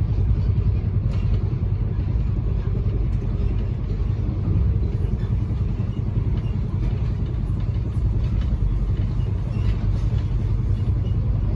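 Steady low rumble of a passenger train running along the line, heard from inside the carriage, with a few faint clicks over it.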